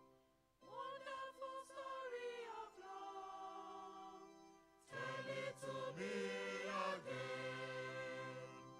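Choir singing, beginning about half a second in, with a short break a little past the middle before the voices come back louder.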